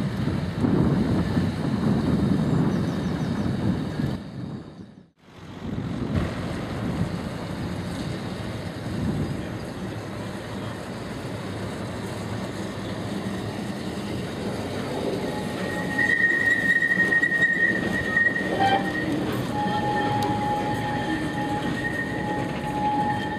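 Great Orme Tramway cable-hauled tramcar running on its street track, a steady rumble of wheels on rail, which cuts out briefly about five seconds in. From about sixteen seconds in, a steady high squeal sets in as the steel wheels take the curve, coming and going to the end.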